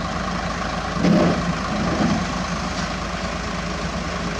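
Isuzu Giga FVZ self-loader truck's diesel engine idling steadily, with a short louder noise about a second in.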